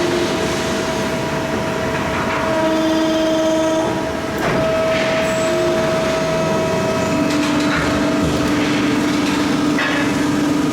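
Hydraulic press brake running through a bend: a steady machine hum with a held whine that shifts pitch as the load changes, and a couple of short clunks.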